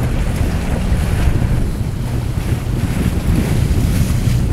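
Steady wind buffeting the microphone, with waves lapping against the boat.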